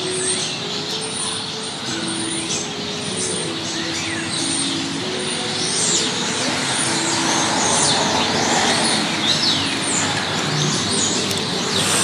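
A large flock of small birds chirping all at once, a dense overlapping chorus of short high chirps and quick downward-sweeping calls, over a steady hum of city traffic.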